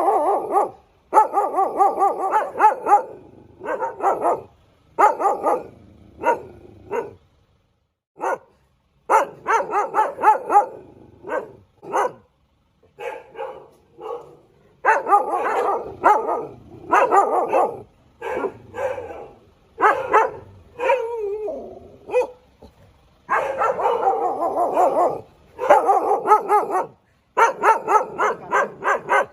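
A dog barking and yipping in repeated short bursts, with a few whining calls that slide in pitch.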